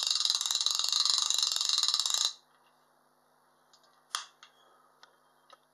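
The ratchet (click check) of a small blackfish fishing reel, clicking rapidly as the spool spins, stopping abruptly about two seconds in. A few separate clicks follow as the reel is handled.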